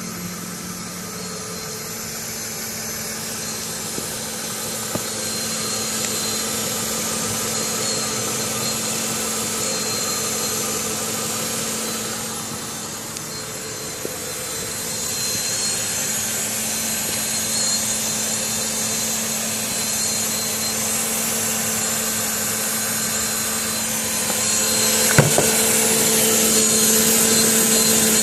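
Car engine idling with a steady hum and hiss: an unfamiliar noise first heard a few hours after an oil change with Engine Restore additive. It grows louder about halfway through and again near the end, with a single sharp click near the end.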